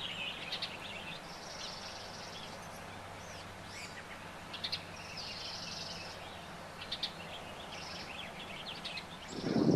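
Songbirds chirping and calling outdoors: short chirps and several buzzy trills about a second long, repeated every few seconds, over a steady low hum.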